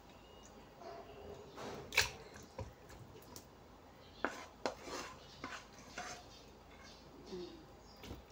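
A spatula scraping and knocking against a frying pan as sauced chicken feet are scraped out into a pot. It gives soft scrapes with several sharp clinks, the loudest about two seconds in and a quick run of them between four and six seconds.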